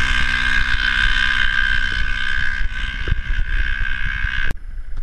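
UTV (side-by-side) engine running at high revs with a steady drone, slowly fading as the vehicle speeds away down the dirt track; the sound cuts off suddenly about four and a half seconds in.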